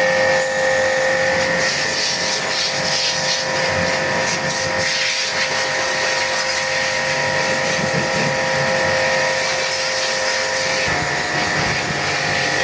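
A machine running steadily, with a constant whine of several fixed tones over a hiss.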